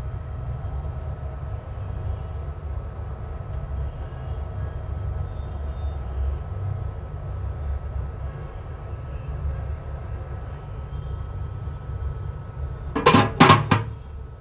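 Steady low hum with a faint steady high whine, and a quick run of three or four sharp clicks about thirteen seconds in, the loudest sound.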